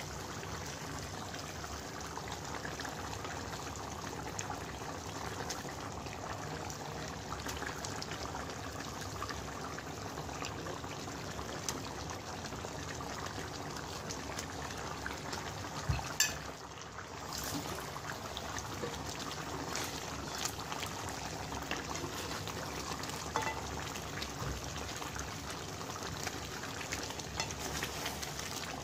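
Thin spiced gravy for chicken roast bubbling at a steady boil in a pot, with small knocks and splashes as pieces of fried chicken go in and are turned with a wooden spatula. One louder knock comes a little past halfway.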